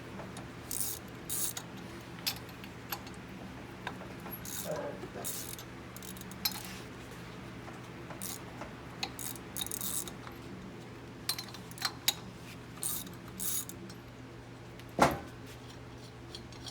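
Ratchet wrench clicking in short runs as the valve's nuts are loosened and taken off, with small metal clinks and one louder knock about fifteen seconds in. A steady low hum runs underneath.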